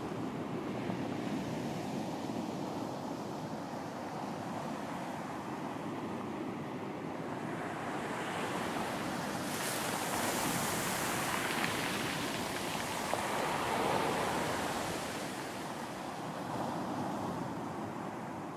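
Ocean waves breaking and washing up a beach in a continuous rush of surf. It swells to a louder, hissier wash about halfway through, then subsides again.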